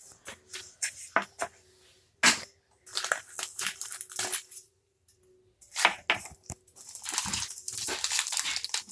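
Plastic toy packaging crinkling and tearing in irregular bursts, with small knocks and clicks, as a toy pack is pulled open. There are two longer stretches of crackling, one about three seconds in and one near the end.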